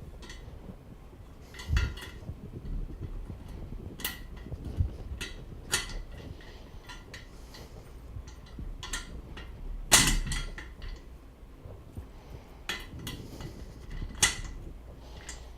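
Chair casters being pushed into the sockets of the chair base: a series of irregular knocks and clicks as each caster stem is fitted, the loudest knock about ten seconds in.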